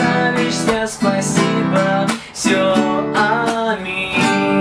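Nylon-string classical guitar strummed in a steady rhythm, changing chords, with a short break about halfway and a chord left ringing near the end.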